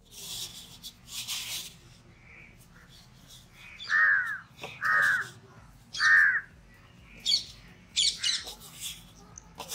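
A crow cawing three times, about a second apart, with a few short rustles near the start.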